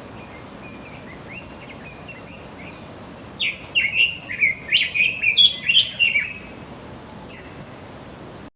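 Red-billed leiothrix singing: a quick warbling phrase of rising and falling notes lasting about three seconds, beginning about three seconds in, with faint short notes before it.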